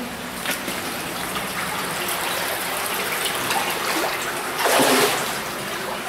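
Water of the Chertory stream flowing and trickling through its underground collector, heard from inside a narrow side pipe, with a louder rushing noise about five seconds in.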